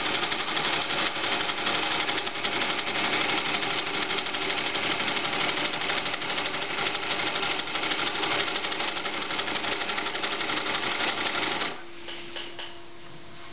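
1956 Pfaff 130-6 sewing machine running, stitching a decorative pattern driven by the cam stack of its Automatic 50010 embroidery attachment, which is set to 1 so the cam stack turns slowly. It makes a rapid, even clatter that stops about 12 seconds in, leaving a faint steady hum.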